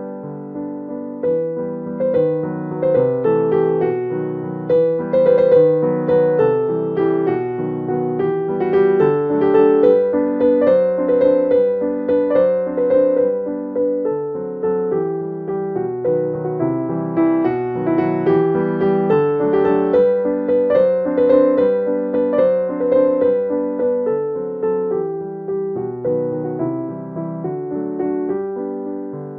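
Background piano music: a gentle melody of plucked-sounding keyboard notes over a steady accompaniment.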